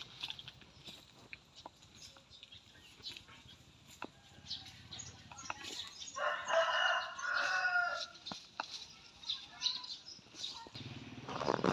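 A cow tears and crops grass with soft, scattered crunching clicks. About six seconds in, a rooster crows once for about two seconds, the loudest sound in the stretch.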